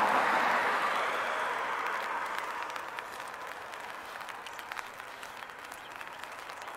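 Wet hiss of tyres on a rain-soaked road, fading away over the first few seconds, with light rain pattering on an umbrella in scattered ticks.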